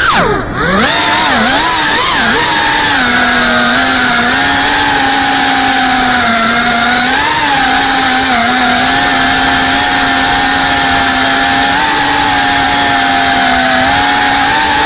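FPV freestyle quadcopter's brushless motors and propellers buzzing, heard from onboard the drone. About half a second in, the pitch swoops down and the sound dips briefly as the throttle is cut, then it climbs back. After that the buzz holds a fairly steady pitch with small wobbles and rises slightly near the end.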